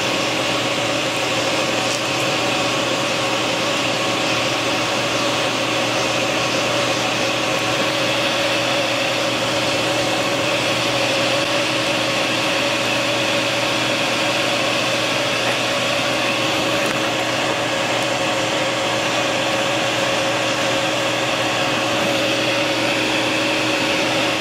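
Electric air blower running steadily, forcing air into a forge fire: a constant whine over a rushing hiss.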